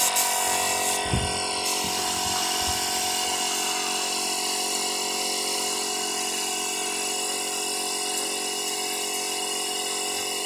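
Paint spray gun in use: a steady motor whine with hissing air as paint is sprayed, plus a few low bumps in the first three seconds.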